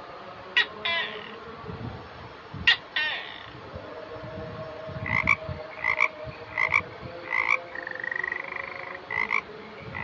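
Two gecko calls, each a sharp chirp followed by a quick clicking rattle. Then, about five seconds in, a frog croaks in a run of short calls about two-thirds of a second apart, with one longer trill among them.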